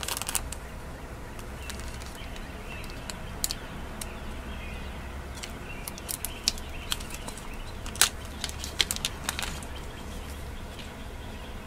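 Small clear plastic bead bag being handled and opened by hand: faint crinkling with scattered sharp clicks and ticks, the sharpest about eight seconds in, over a low steady hum.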